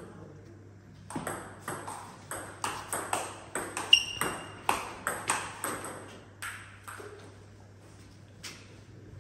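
Table tennis rally: the ball clicking off the bats and the table in quick alternation, about three hits a second. It starts about a second in and stops about two-thirds of the way through when the point ends, with one lone tap near the end.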